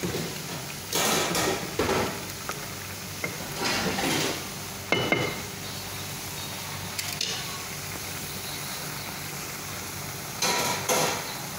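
A utensil scraping and knocking against a stainless steel pan of bitter melon and egg, in a few short strokes, with a sharp metallic clink about five seconds in and more strokes near the end, over a steady low hiss.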